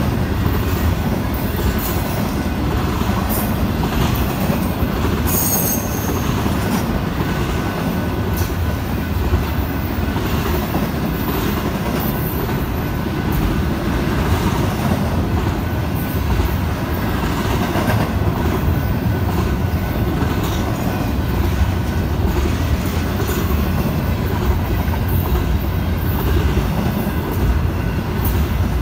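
Double-stack intermodal container cars of a fast freight train rolling past: a steady rumble and rattle of steel wheels on rail, with a few brief high-pitched wheel squeals, one about five seconds in.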